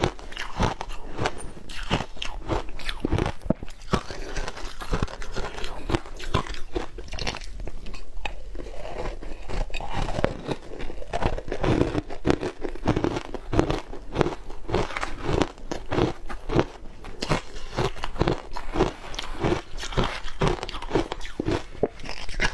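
Close-up crunching and chewing of shaved ice, a steady run of crisp crunches that settles into a regular chewing rhythm of about three a second in the second half.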